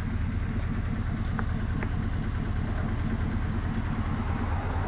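Chevy Silverado pickup idling steadily with its muffler cut off: an even, deep open-exhaust rumble.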